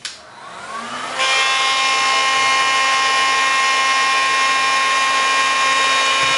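Handheld electric heat gun switched on, its fan motor spinning up with a rising whine. About a second in it jumps to a steady, loud blowing hiss and motor whine on the high setting. It is heating a motherboard's graphics chip to reflow solder that cracked from overheating.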